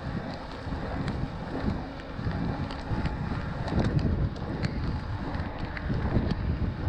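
Wind buffeting the microphone while an e-mountain bike rolls fast over a rough trail, with a low rumble from the tyres and frame and scattered sharp clicks and rattles from the bike.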